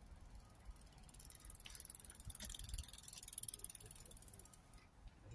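Faint, rapid high-pitched ticking of a bicycle's freewheel hub as the bike coasts past. It rises from about a second in, is loudest in the middle and fades out shortly before the end.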